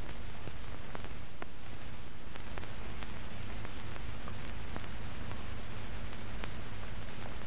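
Steady hiss and low hum of an old film soundtrack, with faint scattered clicks and nothing else sounding.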